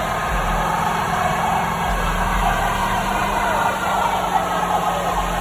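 Chevrolet Silverado 2500HD pickup doing a burnout: the engine held at steady high revs while the rear tyres spin against the pavement.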